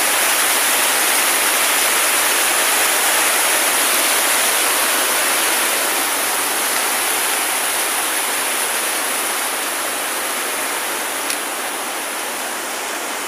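River water rushing steadily, easing off slightly over the last several seconds.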